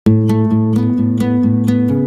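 Background music: acoustic guitar chords struck in a steady rhythm, about four strokes a second.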